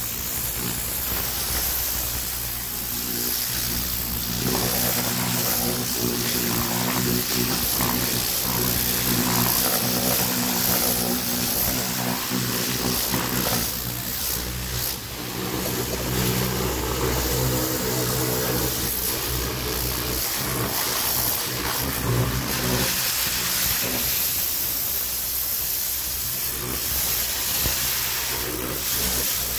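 High-pressure plunger-pump car washer running: a steady pump hum under the hiss of the water jet. The hum grows stronger about four seconds in and eases back near the end.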